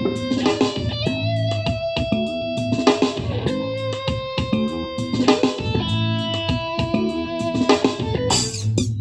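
Huawei Mini Speaker (CM510) Bluetooth speaker playing music with electric guitar and drums, picked up by a microphone. Near the end the music changes to a brighter electronic track.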